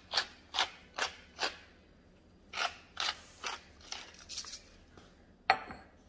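Wooden hand-twisted spice grinder crunching over the meat in short grinding strokes, about two to three a second, in two runs with a pause between. A sharp knock near the end.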